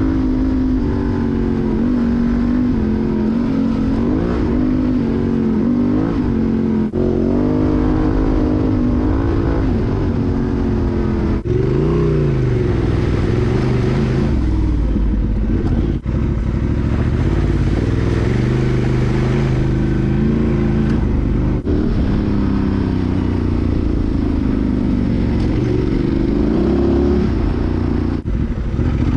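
Honda Transalp XL750's parallel-twin engine through a Mivv Dakar exhaust and Arrow decat, ridden hard off-road, its revs rising and falling all the way through. The sound breaks off for a split second a few times.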